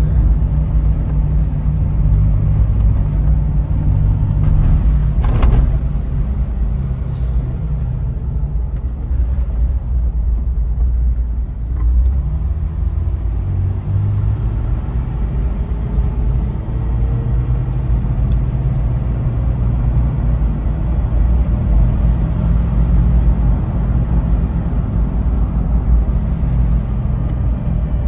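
Jeep Wrangler LJ Unlimited driving on a snow-covered gravel road, heard from inside the cabin: the 4.0-litre straight-six and the tyres make a steady low rumble. A single short knock comes about five seconds in.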